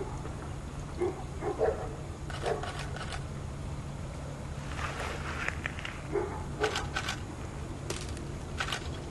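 Short animal calls repeating every second or so, some of them sharp, over a steady low hum.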